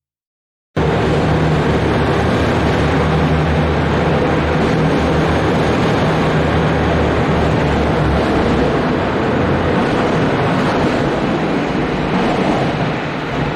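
Route bus heard from inside while driving: steady engine hum and road noise, cutting in abruptly under a second in after a brief silence.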